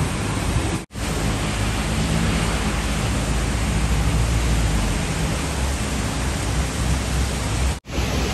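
Heavy rain pouring down onto wet pavement, a steady loud hiss, cut off for an instant twice.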